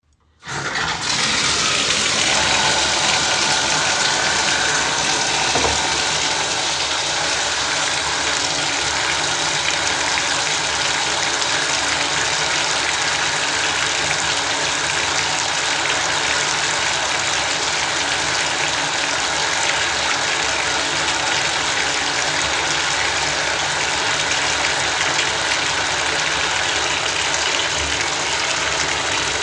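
Bathtub tap running full, pouring water into the tub in a tiled bathroom. It starts about half a second in and then runs as a steady rushing splash.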